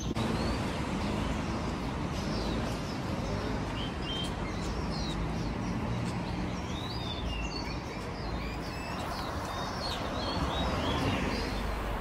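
Many small birds chirping and twittering in short, quick high calls over a steady low background rumble. The chirping thickens in the middle of the stretch and dies away near the end.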